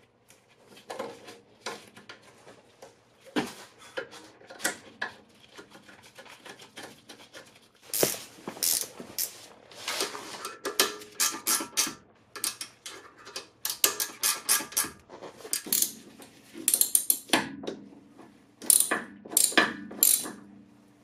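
Hand ratchet wrench clicking in quick runs as bolts are tightened, with scattered clinks of metal tools.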